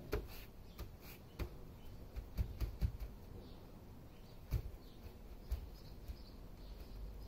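Quiet outdoor ambience with faint bird chirps and a few scattered soft clicks and low knocks.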